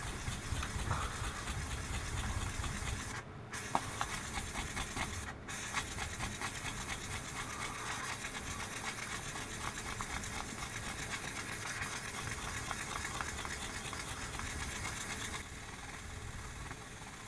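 Fine P2000 sandpaper rubbed by hand over the steel face of an axe head, a fast back-and-forth rasping hiss with two short breaks a few seconds in. This is the final hand-sanding stage of polishing.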